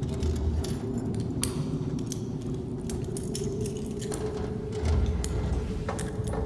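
Film ambience inside a wrecked van: a steady low rumble under one held tone, with scattered small clinks and jingles of metal and glass debris.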